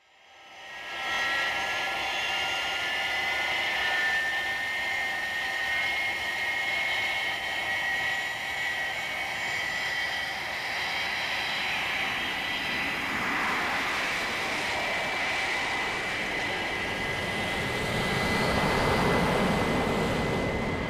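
Jet airliner engines as a film sound effect: the sound fades in, then a steady high whine runs over a rushing noise that swells near the end as the plane lifts off the runway.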